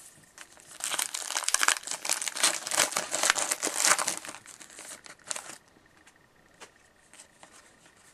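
2013-14 O-Pee-Chee hockey card pack wrapper being torn open and crinkled by hand. It makes a dense crackling for about four seconds that thins out and stops, followed by a few faint clicks.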